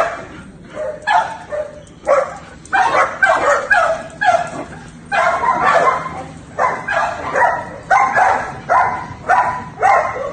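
Dog yipping and whining over and over in short, high-pitched calls, about two a second, quieter for a moment near the start and then steady, excited by a cat.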